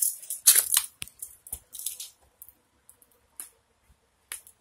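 Keys jangling with sharp metal clicks of a door latch and lock, busiest in the first two seconds and then thinning to a few faint clicks.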